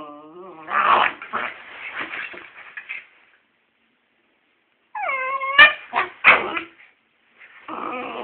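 Westie and Scottish terrier puppies play-fighting: a whine, high yips and short barks in bursts, with a pause of about a second and a half in the middle and a higher yelp about five seconds in.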